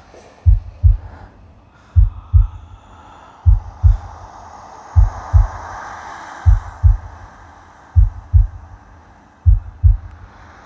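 Heartbeat sound on a soundtrack: deep, evenly paced double thumps, lub-dub, about every one and a half seconds, with a soft airy swell rising and fading in the middle.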